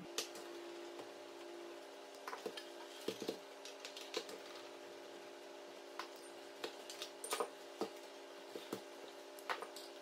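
Irregular light clicks and taps of screwdrivers and hard plastic parts as a Nespresso coffee machine is taken apart, busiest about seven seconds in, over a steady low hum.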